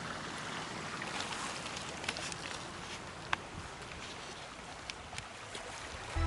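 Steady rushing of a nearby stream, with a few faint clicks and rustles as the camera is moved and handled.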